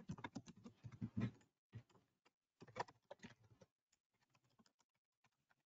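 Faint computer keyboard typing: a quick run of keystrokes in the first second or so, then scattered keystrokes with pauses.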